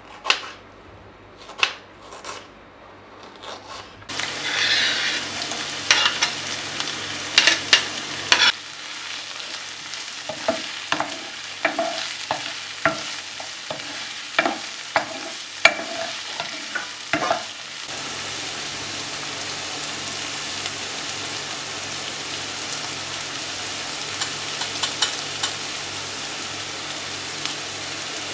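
Food frying in a pan: a few clicks, then a sizzle that starts suddenly about four seconds in with a loud burst. A utensil knocks against the pan over and over in the middle as the food is stirred, then steady sizzling.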